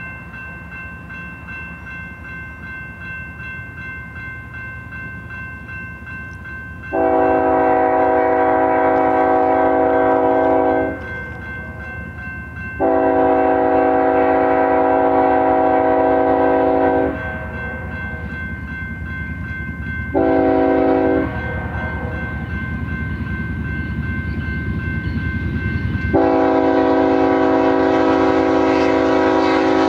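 Lead GE ES44AC locomotive of a BNSF freight train sounding its air horn in the grade-crossing pattern: two long blasts, one short, then a long one still sounding at the end. Under the horn a crossing bell rings steadily and the rumble of the approaching locomotives grows louder.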